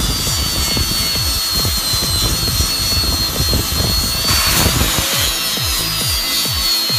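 Small disc sander whining steadily at a high pitch while it works metal, with a brief harsher surge about two-thirds of the way through. Electronic music with a pulsing bass beat plays under it.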